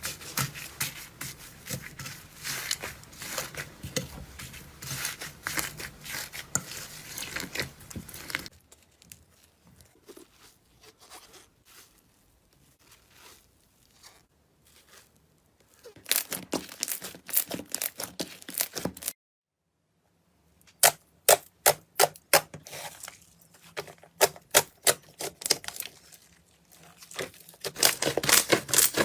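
Slime being squeezed, pressed and poked by hand close to the microphone, making crackling, popping clicks. It comes in several separate clips: dense crackling, then fainter handling, then a series of sharp separate pops. There is a brief silent gap about two-thirds of the way through.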